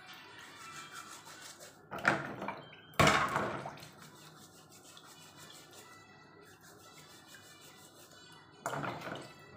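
Scouring pad scrubbing mussel shells in a basin of water, a soft, steady rasping rub with water dripping. Louder splashes come about two and three seconds in and again near the end, the one at three seconds the loudest.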